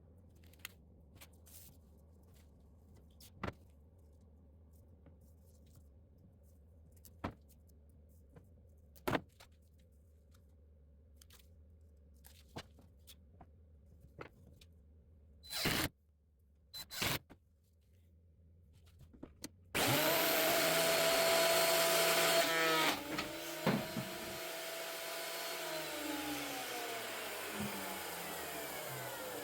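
Scattered light clicks and knocks of handling over a low hum, then a stationary woodworking machine starts about two-thirds of the way in and runs loudly. It gives a brief rattle a few seconds later, after which its pitch falls steadily as the motor slows.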